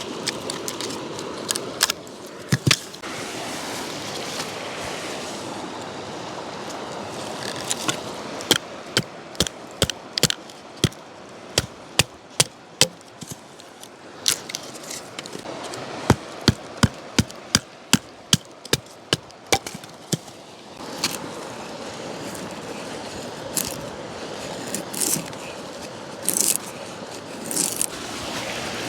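Firewood being split into kindling: a run of sharp knocks and cracks, most closely spaced in the middle stretch, over a steady rushing noise.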